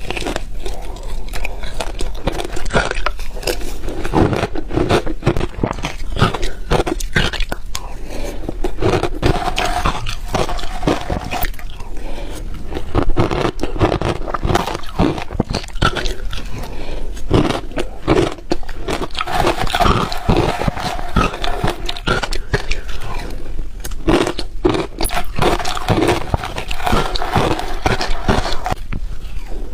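Close-miked crunching and chewing of hard ice: a person bites down and grinds the pieces in a dense, irregular run of loud crunches, with a steady low hum underneath.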